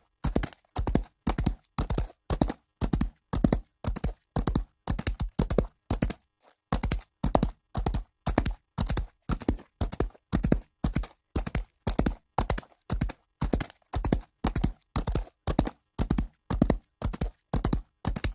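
Horse galloping on dirt: hoofbeats falling in quick clusters, about two strides a second, with a brief break in the rhythm about six seconds in.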